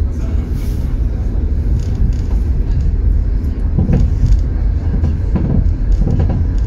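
Tram running along street track, heard from on board: a steady low rumble, with a few brief clatters about four seconds in and again around six seconds.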